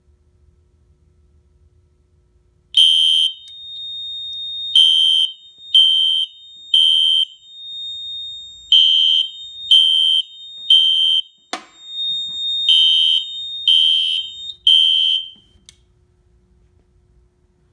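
Fire alarm horn strobe sounding the temporal-three pattern at its low volume setting: three short blasts, a pause, and three more, repeated. It signals that the system is in alarm from the smoke detector test. A steady high beep from the fire alarm panel runs underneath, there is one sharp click partway through, and all of it cuts off near the end.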